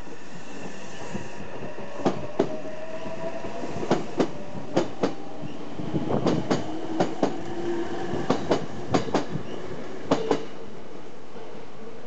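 Train passing, its wheels clacking over rail joints in pairs, about eight pairs spaced roughly a second apart. Thin tones that slide slowly in pitch run under the clacks.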